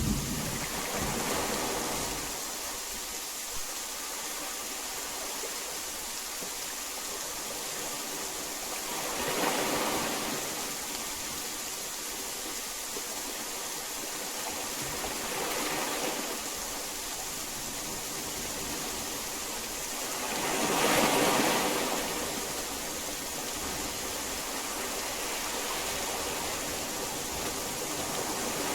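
Steady hiss of heavy rain that swells louder in waves three times, the strongest near two-thirds of the way through.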